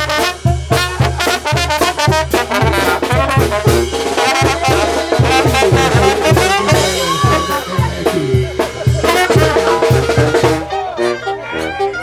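Live Sinaloan banda playing a cumbia: trumpets, trombones and clarinet over a tuba and a steady low drum beat. About a second before the end the beat drops out, leaving a held low note under the brass.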